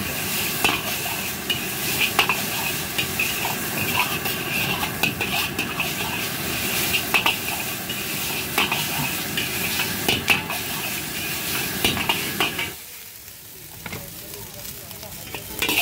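Chicken fried rice sizzling in a large iron wok while a steel ladle stirs and scrapes it, with frequent sharp clinks of the ladle on the pan. The sizzle drops much quieter about three-quarters of the way through, and a few sharp clatters come near the end.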